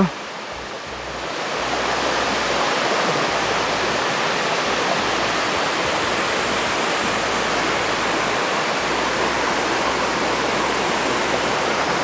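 Steady rush of flowing and falling water from a mountain river and waterfall. It swells about a second and a half in, then holds steady.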